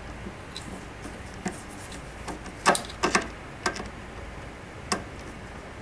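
Scattered light clicks and knocks of screws and a screwdriver being handled against a fiber-filled plastic rifle stock as the screws are put back in, with a cluster of sharper knocks near the middle.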